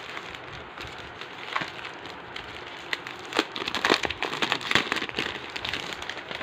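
Clear plastic poly bags around folded T-shirts crinkling and crackling as they are picked up and flipped over by hand, in irregular crackles that are loudest a little past the middle.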